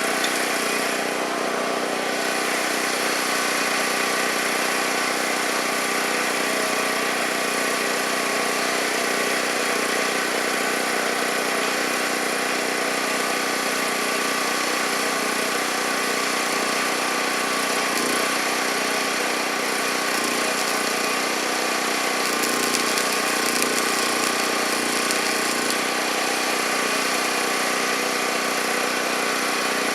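Portable generator's small engine running steadily at constant speed.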